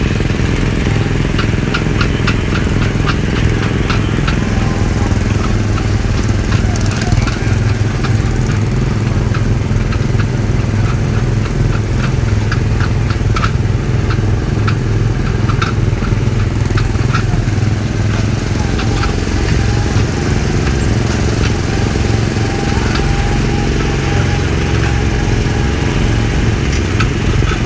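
Small gasoline engine of a ride-on speedway race car running steadily while driving along the track, heard from aboard the car. Many short clicks and ticks sound over the engine.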